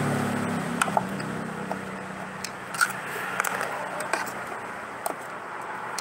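Handwork on a vacuum cleaner's plastic housing: a screwdriver scraping and clicking as screws are worked out to free the cover, with sharp small clicks every second or so. A low hum fades out in the first second.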